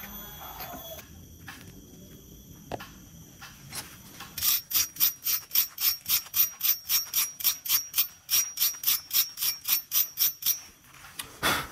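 Steel hole saw held against a spinning wire wheel brush, a harsh scratching that pulses about four to five times a second for some six seconds as the bristles clean the cutter. A short loud scrape comes near the end.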